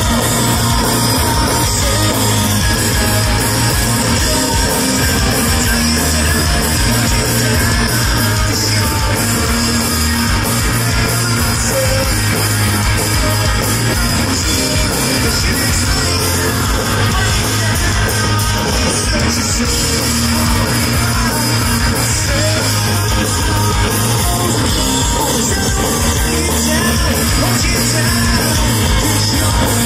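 Live rock band playing loud, with electric guitars, drums and a singing voice.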